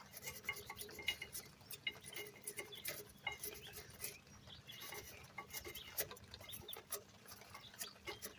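Dirty metal brake-pad hardware clips being scrubbed clean: quick, irregular scraping strokes with light metallic clinks.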